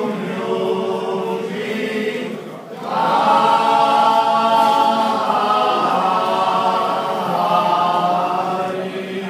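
Men's vocal group singing a cappella in close harmony: a short phrase, a brief break about two and a half seconds in, then a louder long-held chord that fades off near the end.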